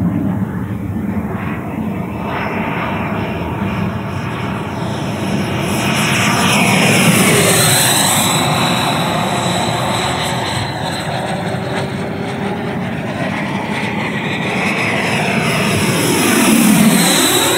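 Electric ducted-fan model jet (JETFAN-120 PRO fan on a HET 800-73 motor) flying fast passes, its fan whine and rush swelling to a peak as it goes by low about 7 seconds in and again near the end, the pitch sweeping as it passes.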